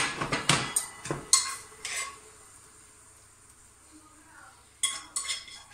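A frying pan and kitchen utensils clinking, knocking and scraping: a cluster of sharp clinks in the first two seconds, a quieter stretch, then a few more knocks about five seconds in.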